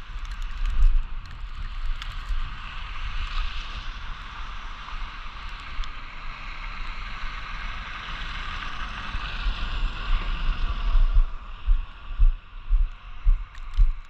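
Vehicle tyres hissing through slush on a snow-covered street, swelling as a city bus drives close by and fading after about eleven seconds. Near the end, low thumps about twice a second from walking with the phone.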